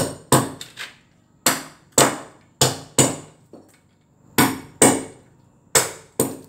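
Hammer chipping at a cement floor, roughening the surface so floor tiles will bond. About a dozen sharp strikes come at an uneven pace, often in quick pairs.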